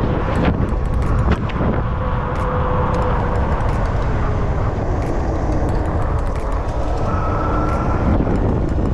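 Wind rushing over the microphone and tyre noise on a wet road while the e-bike is ridden in the rain, with a faint whine that slides slowly down in pitch around the middle.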